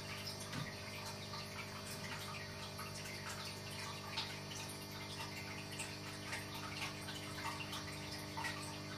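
Faint trickling and dripping water with scattered small irregular drips, over a steady low hum.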